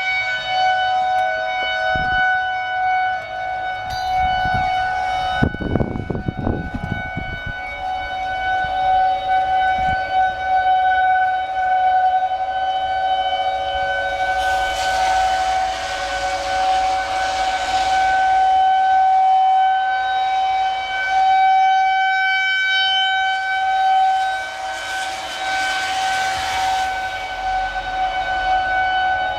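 Outdoor civil-defense tornado warning siren of the single-tone kind, sounding a steady, unwavering wail at one pitch. It swells louder around the middle and again near the end. A brief low rumble comes between about four and seven seconds in.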